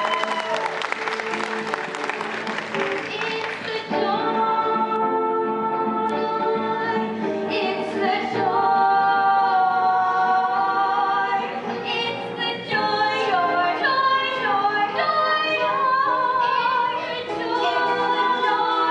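Stage-musical singing: several voices hold and change sung notes over accompaniment. A crackling haze like applause dies away over the first four seconds.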